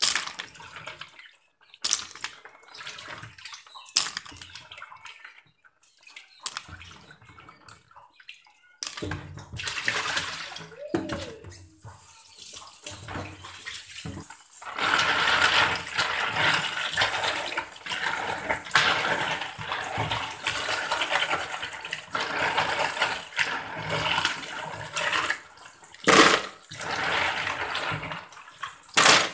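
Scattered clicks and knocks at first, then a tap running into a plastic basin while a hand sloshes and scrubs sedut snails in the water to wash them. The running water comes in about nine seconds in, grows louder about halfway, and a few sharp knocks sound near the end.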